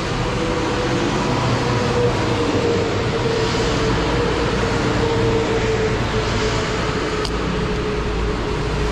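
Steady rushing noise with a faint, even hum running through it.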